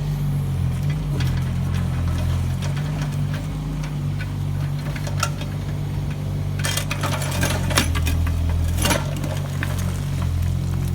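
An engine running steadily with a low hum. A cluster of sharp clicks and scrapes comes from about six and a half to nine seconds in.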